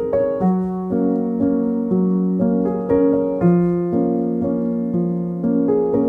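Background piano music: a gentle melody of sustained notes, a new note or chord struck about twice a second.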